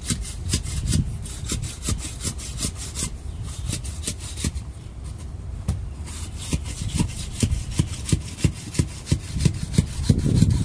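An 8-foot grounding rod being worked up and down by hand in a water-filled hole in the soil, scraping in quick rhythmic strokes, a few a second, as the water loosens the soil and lets the rod sink deeper.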